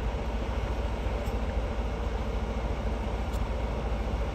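A car engine idling, giving a steady low rumble.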